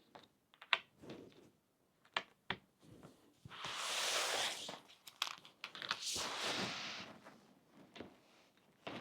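Cardboard jigsaw puzzle pieces being handled and pressed into place. There are a few sharp clicks, then two longer stretches of rustling and sliding, about three and a half seconds in and again around six seconds in.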